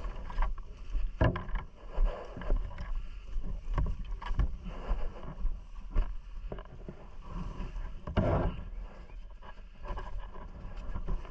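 ATV engine running under a steady low rumble, with wind buffeting the microphone and irregular sharp knocks and thumps; a longer noisy gust about eight seconds in.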